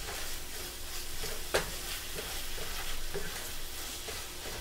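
Food sizzling in a frying pan while a wooden spatula stirs it, scraping and knocking against the pan, with one sharper knock about a second and a half in.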